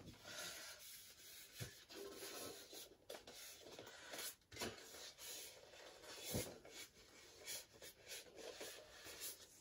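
Faint rubbing and rustling of things being handled, with a few soft knocks, the clearest about six seconds in.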